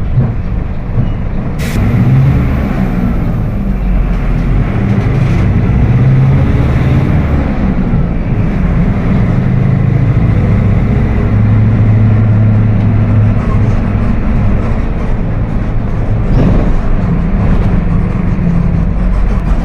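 Mercedes-Benz OF 1721 BlueTec 5 city bus under way: its engine and drivetrain run with a low growl from the rear differential, the sign of a rear-axle fault. The pitch shifts up and down in the first seconds, then holds steady, with a sharp click about two seconds in.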